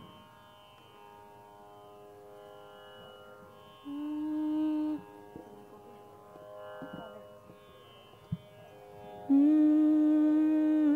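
Steady tanpura-style drone from an electronic shruti box, with a singer holding a single steady note over it twice: briefly about four seconds in, and louder for the last second and a half or so, as the pitch is taken before singing.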